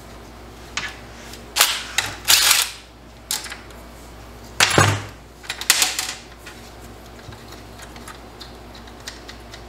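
Cordless impact driver firing in about six short bursts over the first six seconds, loosening a fastener at a TH350 transmission's parking pawl.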